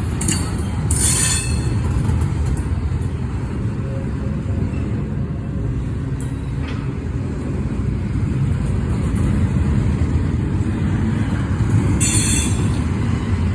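Intermodal freight train rolling through a road crossing: a steady, loud low rumble of wheels on rail, with brief higher-pitched squealing about a second in and again near the end.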